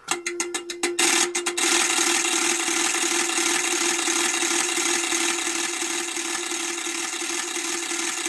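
LDG AT-600ProII autotuner's relays switching through a full tuning cycle, searching for an antenna match on the 20-meter band: a quick run of separate clicks, then a continuous rapid rasping chatter for the rest of the time.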